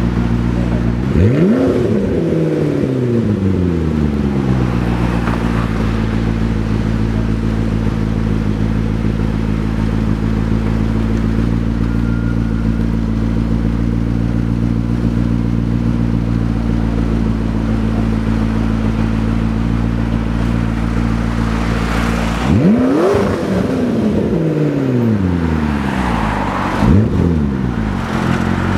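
McLaren 12C's twin-turbo V8 idling steadily and blipped three times: once about a second in and twice near the end. Each rev rises sharply and falls back to idle over a couple of seconds.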